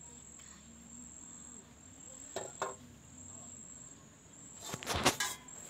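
Aluminium pots and plates being scrubbed and handled, with two light clinks about two and a half seconds in and a louder clatter of metal dishes near the end. Under it an insect keeps up a steady, thin, high trill.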